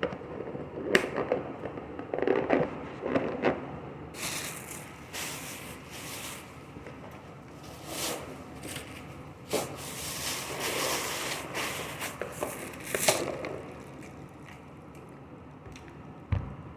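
Close-up eating sounds: a person chewing and crunching food, with irregular crackling and clicking noises, busiest in the middle.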